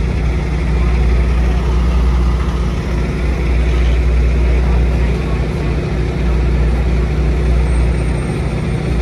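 Heavy-duty wrecker's diesel engine running steadily, a low drone with no change in pitch.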